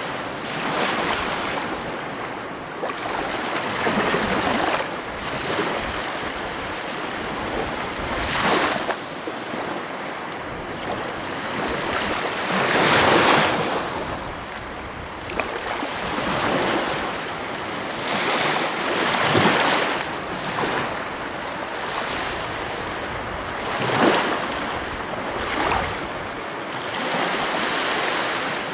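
Heavy ocean waves breaking on the coast, one crash swelling and fading after another every few seconds.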